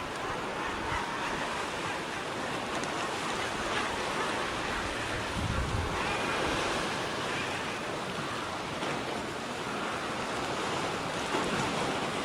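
Sea surf washing steadily against the shore, with wind buffeting the microphone and a brief low rumble from a gust about five seconds in.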